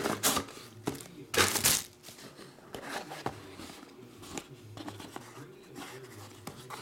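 Cardboard trading-card box being handled and opened: short scraping and rustling sounds, the loudest a longer scrape about a second and a half in, then quieter handling.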